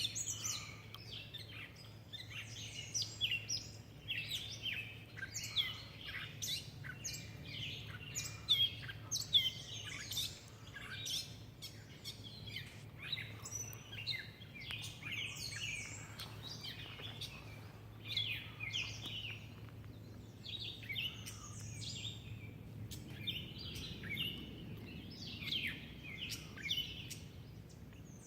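Several birds chirping and calling over one another in quick short notes, with a faint steady low hum underneath.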